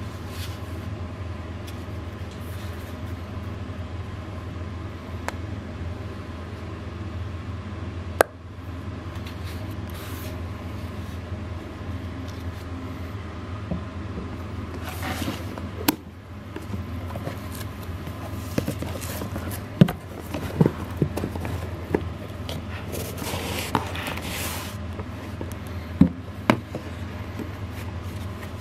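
Hands handling a portable speaker and its cardboard box: rustling and scraping, with scattered sharp knocks and clicks as the box is set down and turned over, over a steady low hum.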